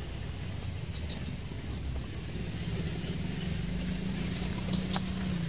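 Steady low engine rumble, getting a little stronger in the second half. A few faint, short, high chirps sound above it.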